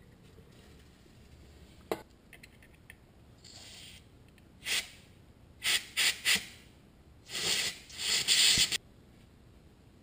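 Aerosol spray can with a straw nozzle hissing in several short bursts, then two longer ones, as it is sprayed onto a brake-hose banjo bolt.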